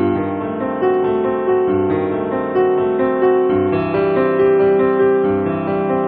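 Gentle background piano music, notes changing about every half second.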